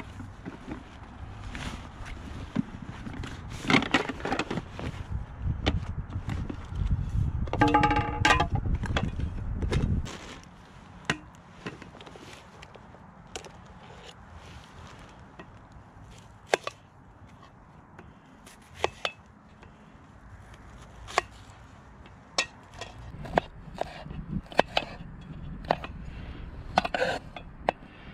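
Camp cooking gear being unpacked and set out by hand: rustling of stuff sacks and handling, a low rumble through the first ten seconds, a ringing metal clink about eight seconds in, then scattered knocks and clinks of cookware. Near the end a knife starts cutting an onion on a wooden cutting board in quick taps.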